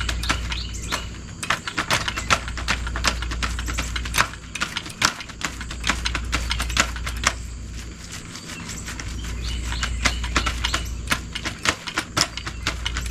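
Paint roller on an extension pole rolling paint onto rough T1-11 plywood siding, giving a quick, irregular run of sticky clicks and crackles, over a low rumble that swells and fades.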